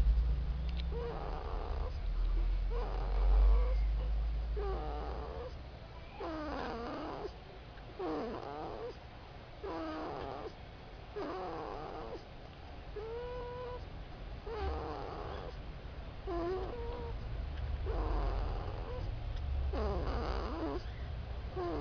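A sleeping pet snoring: a steady run of short, whistling, wavering snores, about one every one and a half seconds, over a low rumble that is loudest in the first few seconds.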